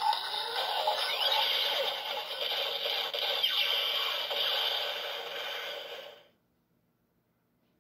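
DX Hiden Zero-One Driver toy transformation belt playing its electronic sound effects through its small built-in speaker, with gliding tones, until it cuts off suddenly about six seconds in.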